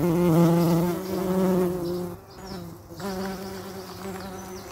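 Bumblebee buzzing in flight: a steady, low droning hum, loud for the first two seconds, dropping out briefly a little past two seconds in, then coming back softer.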